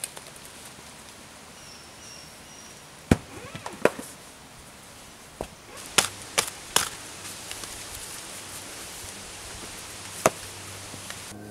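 Wooden digging stick striking hard, stony soil: a few sharp knocks, a pair about 3 to 4 seconds in and a quick cluster around 6 to 7 seconds, then one more knock near the end, over a steady high hiss.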